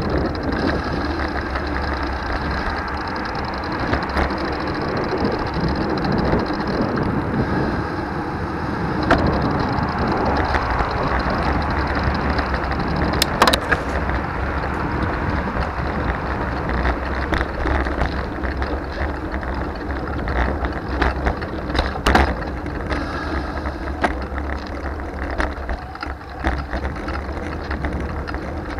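Riding noise from a Trek Dual Sport 4 hybrid bicycle on the road: steady wind rumble on the microphone with tyre noise, and scattered rattles and clicks from the bike. Two sharper knocks stand out, near the middle and again about two-thirds of the way through.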